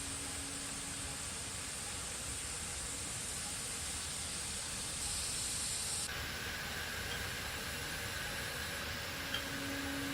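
Steady hiss with a faint low hum. The hiss changes pitch about six seconds in, and there is a single light click near the end.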